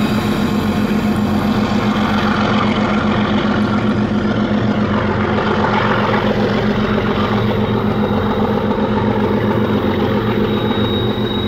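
Diesel locomotive working as the end distributed-power unit at the rear of a loaded grain train, its engine running with a steady, evenly pulsing drone as it moves away, easing off slightly near the end.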